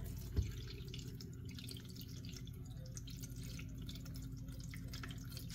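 Water poured from a glass carafe into the fill opening of a BUNN Speed Brew Elite coffee maker, trickling and splashing faintly onto the plastic grid as the machine's back tank fills during first setup. A light knock comes about half a second in.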